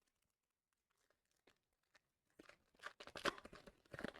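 Foil wrapper of a Yu-Gi-Oh booster pack being torn open and crinkled, with a quick string of crackling rips starting about two seconds in.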